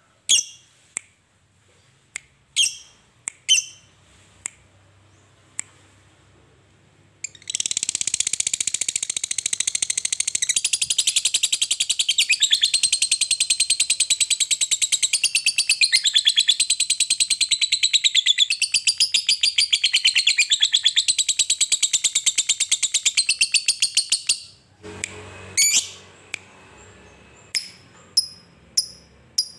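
A lovebird singing: a few sharp single chirps, then from about seven seconds in a long, unbroken, very fast chattering trill, the 'ngekek' prized in contest lovebirds, lasting about seventeen seconds before it breaks off into scattered chirps again.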